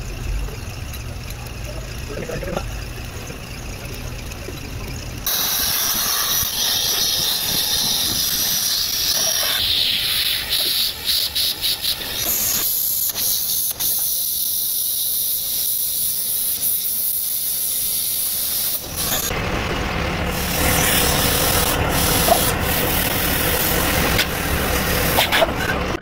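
Compressed air hissing steadily from an air line, with brief breaks, as a car radiator is pressurised for an underwater leak test. A low hum comes before it, for about the first five seconds.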